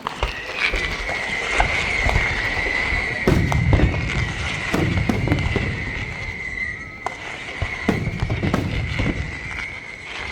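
Fireworks display: deep booms and sharp crackling bursts over a steady high whistle, the heaviest booms about a third of the way in and again near the end.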